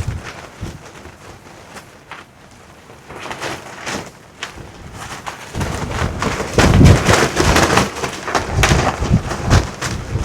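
Strong gusting wind buffeting the microphone, with low rumble and rapid flutter. It eases for a few seconds, then comes back in heavier gusts about halfway through.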